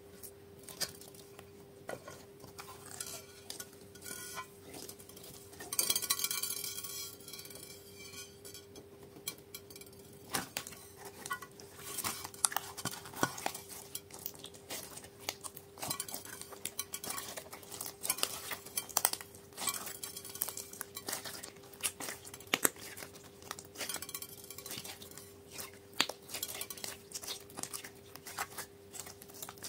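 Pink slime studded with small beads being stretched, folded and squished by hand in a glass dish: a run of sticky pops and clicks, with a louder crackling stretch about six seconds in.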